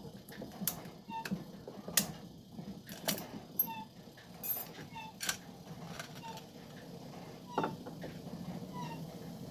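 Loose metal transmission clutch parts clinking and clanking as they are handled and taken apart, about five sharp knocks. A short, faint chirp repeats about twice a second throughout.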